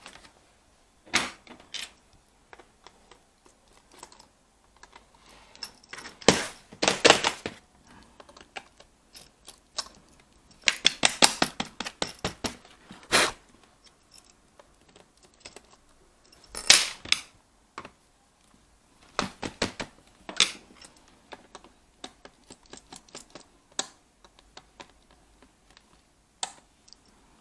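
Plastic clicks, knocks and short rattles from a Lenovo B575 laptop being handled and turned over during keyboard removal, coming in scattered bursts with quiet gaps between.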